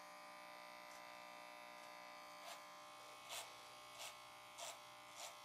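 Corded electric hair clippers running with a faint, steady buzz. About five brief, louder rasps come in the second half as the blades pass through hair at the back of the head.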